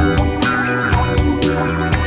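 Instrumental music: guitar over bass guitar with a steady beat, bright hits landing about once a second.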